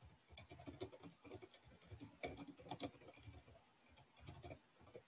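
Faint computer keyboard typing: a run of quick, uneven keystrokes.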